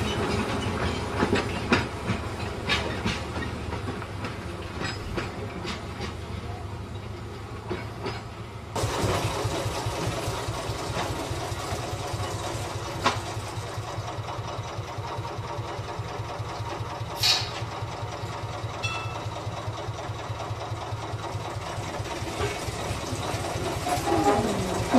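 Narrow-gauge railway locomotive's engine running with a steady low throb, with scattered clicks and knocks over the first several seconds. The sound changes abruptly about nine seconds in, and the engine throb carries on, with a sharp click later.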